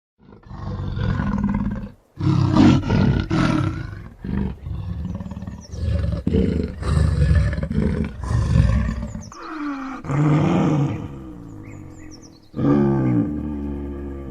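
Leopard growling and roaring: a string of about six long growls with short breaks between them, several of the later ones sliding down in pitch.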